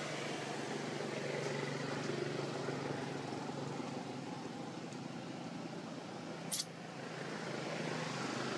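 Steady low motor hum with outdoor background noise, and one brief, sharp high-pitched chirp about six and a half seconds in.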